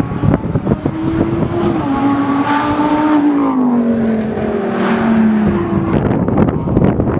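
Supercar engine running hard at a track, its note holding and then falling steadily in pitch for a couple of seconds before it fades about six seconds in. Wind rumbles on the microphone around it.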